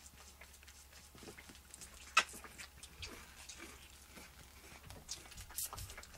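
Toggenburg goat kid sucking at a feeding bottle's nipple: a run of faint wet clicks and smacks, with one sharp click about two seconds in.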